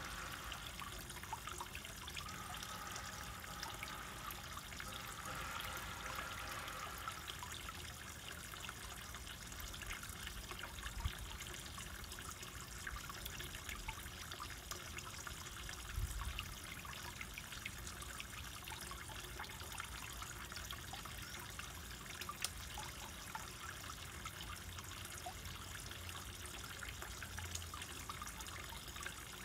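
Water trickling and dripping steadily into a garden koi pond, a continuous splashing hiss with many small drips. There are a couple of soft low bumps partway through.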